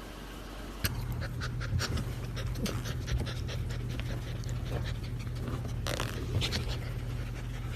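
A dog panting in quick, irregular breaths over a steady low hum. Both start together about a second in.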